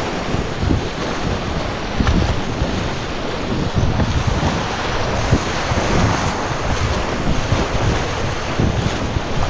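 Whitewater rapid rushing and splashing around the bow of a kayak paddling through it, a steady loud wash with irregular low gusts of wind buffeting the microphone.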